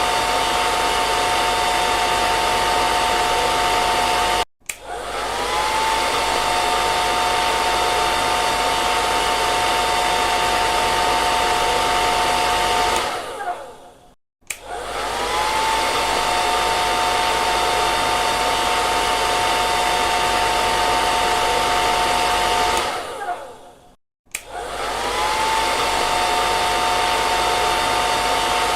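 Hair dryer blowing with a steady whine. It cuts out briefly three times, and each time starts again with a rising whine as its motor spins up.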